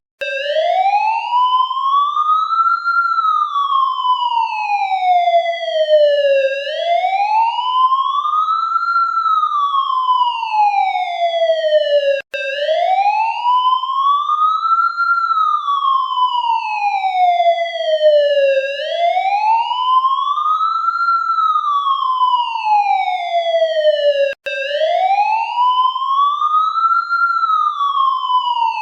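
Police siren on its wail: one tone sweeping slowly up and back down, about one rise and fall every six seconds, with a momentary dropout roughly every twelve seconds.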